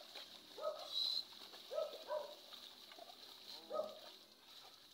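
Faint short animal calls, about five of them spread over a few seconds, each rising and then falling in pitch.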